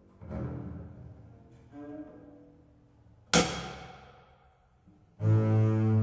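Solo double bass in an experimental contemporary piece. Two softer attacks ring and fade, then a sharp, loud attack about three seconds in rings away. From about five seconds in comes a loud, low, sustained bowed note.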